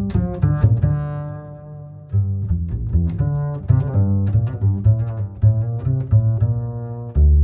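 Background music carried by low string instruments: a run of short plucked and bowed bass notes, with one held note fading away about two seconds in before the notes pick up again.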